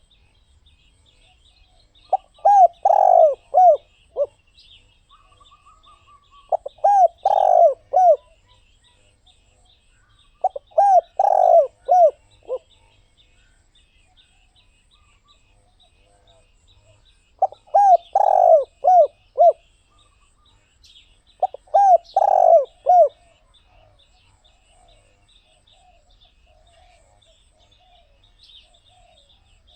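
Spotted dove cooing: five phrases, each a quick run of four or five low coos lasting about a second and a half, repeated every four seconds or so, with a longer pause in the middle.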